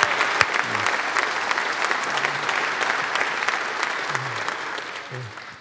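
Audience clapping and applauding in a large hall, dying away near the end.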